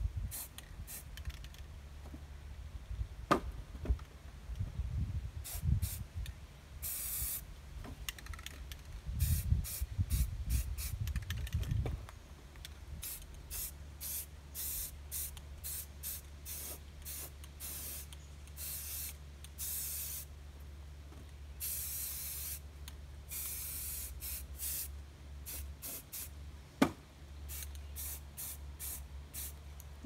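Aerosol spray-paint can spraying in many short bursts, with a few longer hisses of about a second, as paint is dabbed on in spots. One sharp knock sounds a few seconds before the end.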